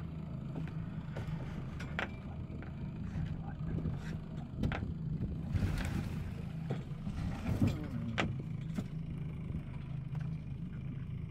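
A boat's engine running steadily while a crab-trap line is hauled in by hand, with scattered knocks and clicks from the rope and gear and a brief rushing noise about six seconds in.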